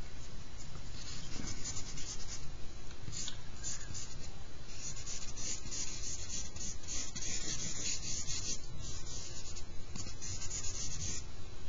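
Charcoal stick scratching and rubbing across drawing paper in short, irregular shading strokes.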